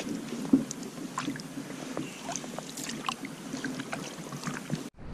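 Wooden canoe paddle stroking through calm water: small splashes, drips and light clicks, with one sharp knock about half a second in.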